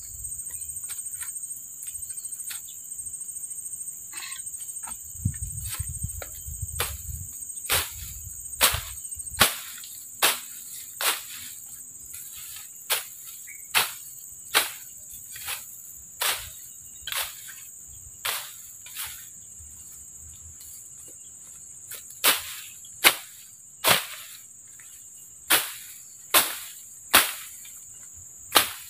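Sharp chopping strikes from a machete cutting through grass and stems. They begin a few seconds in and come irregularly, about one a second, with a short lull, and the loudest are near the end. Under them is the steady high drone of insects.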